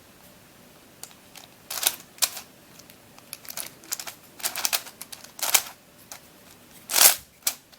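Plastic Mixup twisty puzzle being turned by hand: irregular clicks and clacks as its layers are twisted, in small clusters, the loudest about seven seconds in.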